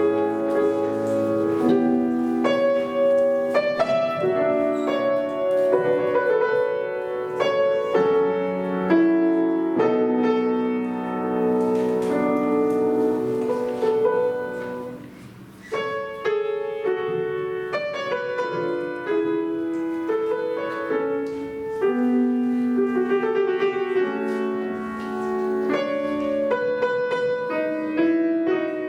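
Piano music played by a duo, continuous, with a brief lull about fifteen seconds in before the playing resumes.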